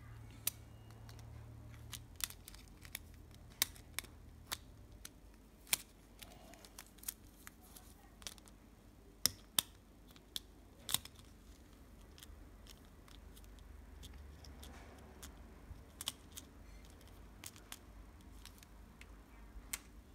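Irregular small plastic clicks and taps as tiny wheels are pushed and fitted onto a miniature plastic toy shopping cart. The clicks are frequent in the first half and come again a few times near the end.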